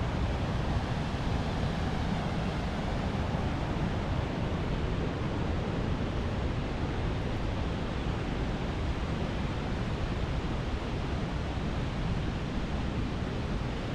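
A river waterfall rushing, a steady, even noise of falling water.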